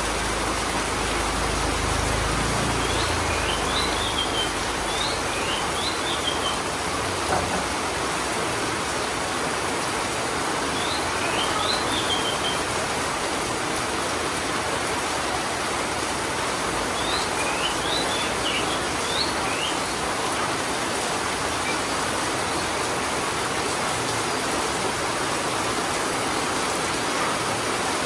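Heavy rain falling steadily on a wet concrete alley, an even hiss of water. A bird chirps briefly three times over it, a few seconds in, near the middle and later on.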